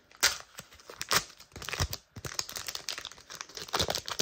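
Foil Pokémon booster pack wrapper crinkling in short, irregular crackles as it is handled and torn open.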